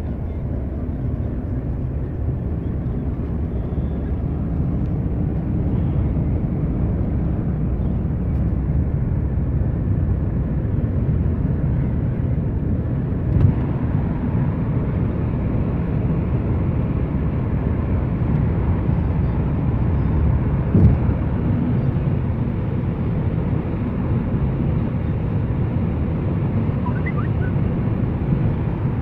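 Steady low rumble of road and engine noise inside a moving Hyundai car's cabin, with one short knock near the middle and another about three-quarters through.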